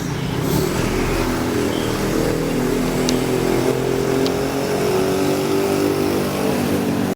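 Heavy diesel engine of road-paving machinery running steadily, with two short high clicks a little past the middle.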